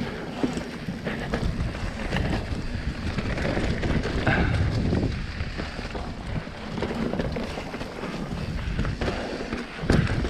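Mountain bike riding down a dirt trail: wind buffeting the microphone over the rumble of the tyres, with frequent clicks and rattles from the bike over bumps.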